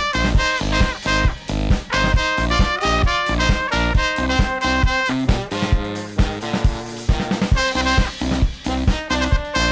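Upbeat instrumental dance-pop cover played by a small brass band: trumpet, trombone and bass saxophone over drums, with a steady, driving beat.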